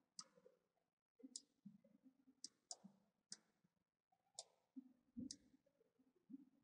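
Faint computer mouse clicks, about half a dozen spread out, as objects are selected and dragged, with a soft low thump a little past five seconds in.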